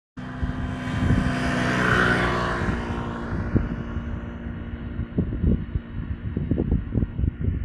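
Airliner on landing approach passing low overhead: engine noise swelling to its loudest about two seconds in, then fading away within about a second. Wind then buffets the microphone in gusts.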